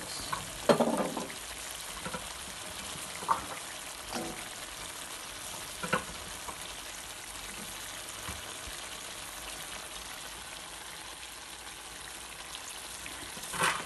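Chicken and potatoes sizzling steadily in a pan, with a few short knocks and clatters as carrot slices are dropped in.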